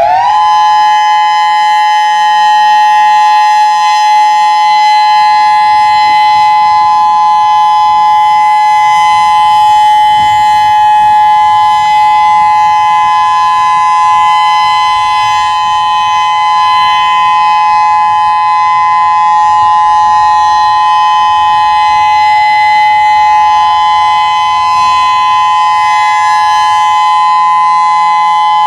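Whelen WPS-3016 rotating electronic warning siren sounding its steady test tone, a loud two-note chord that levels off in pitch just as it begins and then holds.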